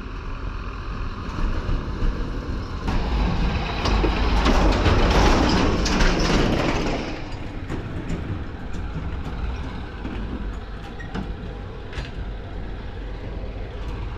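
A motor vehicle's engine and road noise, a steady low rumble that swells to its loudest about five seconds in and then eases off.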